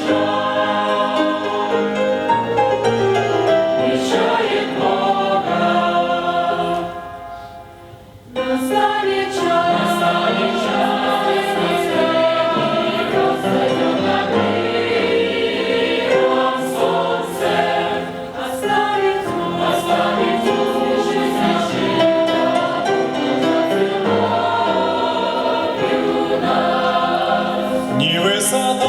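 A choir singing a Christian song, with long held chords. The singing thins to a brief pause about seven to eight seconds in, then resumes at full level.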